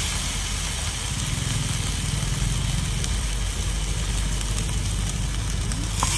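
Paste frying in a pan on a portable gas stove while a metal spatula stirs it, over a steady low rumble like a running motor and an even hiss. A short clack near the end as sliced beef goes into the pan.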